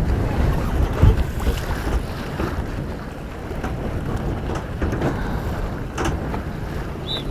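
Wind buffeting the microphone and water rushing along the hull of a Puck-class sailing boat under way, with a couple of sharp knocks from the boat.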